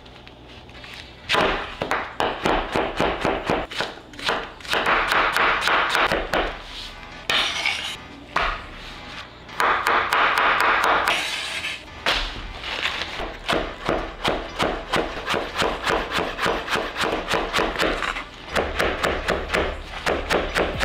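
Large chef's knife chopping quickly on a bamboo cutting board: fast runs of knocks, several a second, as onion, garlic and cilantro are cut.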